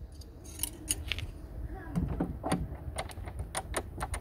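Small metal hand tools clicking and scraping inside the empty cylinder hole of a mortise door lock: a quick run of sharp metallic clicks as the lock mechanism is worked by hand.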